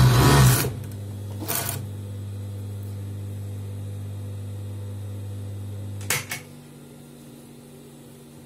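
Industrial overlock machine (serger) ends a stretch of stitching just under a second in, then its motor keeps up a steady low hum while the needles are idle. About six seconds in there is a click, and the hum drops to a fainter one.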